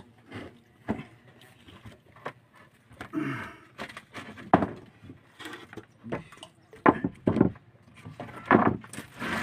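Irregular knocks and thuds on wooden boards, a few sharp ones clustered near the end, with a brief low vocal sound about three seconds in.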